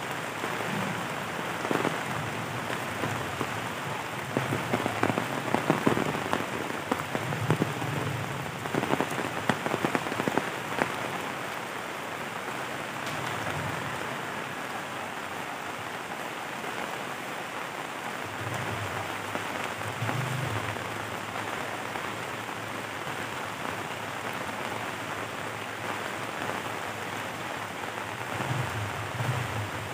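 Heavy rain pouring steadily, with a spell of louder, sharp drop hits about four to eleven seconds in.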